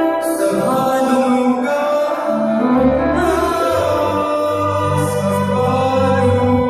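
Worship music: singers with a band, holding long notes and chords over a steady bass line.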